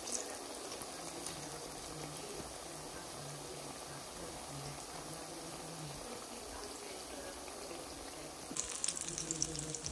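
Water running from a tap into a sink, a steady rush; about nine seconds in the splashing turns brighter and crackly.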